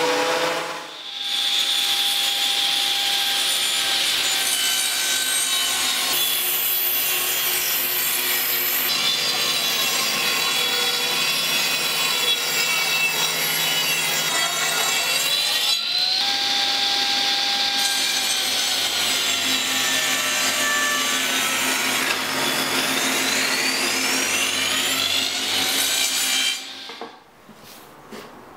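Table saw ripping spalted beech boards in a run of several cuts, the whine of the blade shifting in pitch as the wood feeds through. The machine noise stops sharply near the end.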